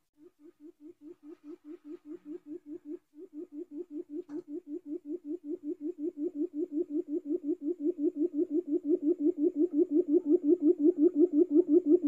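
Quail lure call: a long run of low, even hoots, about five a second, growing steadily louder. There is a brief break about three seconds in and a small click a little after four seconds.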